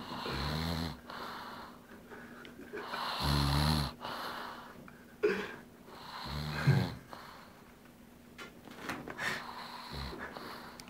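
Snoring: three long snores about three seconds apart, the third the loudest, then a shorter one near the end.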